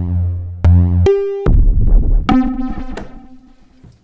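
Electronic synthesizer music: a few struck synth notes over heavy bass hits, then a last chord struck a little past halfway that dies away by the end.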